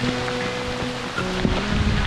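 Background music with long held notes over the steady hiss of heavy rain.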